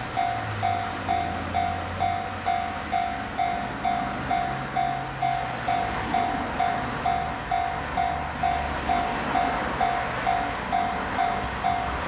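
Japanese level-crossing warning bell ringing steadily at about two strikes a second, while a 381 series electric limited-express train approaches with a rumble that grows louder, reaching the crossing near the end.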